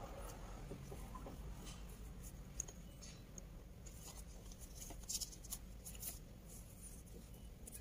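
Faint handling noise: small clicks and rustles from a hand holding and shifting a phone over its box, over a low steady hum, with a few sharper clicks about five to six seconds in.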